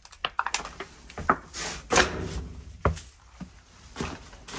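Footsteps scuffing and crunching over litter and grit on a concrete floor inside a small concrete bunker, with irregular small knocks and one longer scrape about two seconds in.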